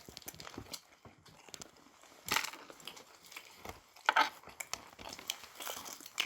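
Scattered crunching and crinkling of fried chicken being eaten, with a couple of louder crunches about two and four seconds in.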